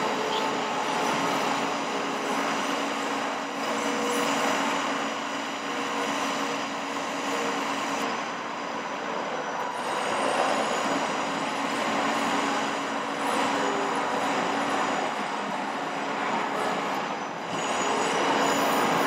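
Bucket truck's engine running with the PTO-driven hydraulic pump working as the aerial boom is lowered: a steady drone with several held whining tones.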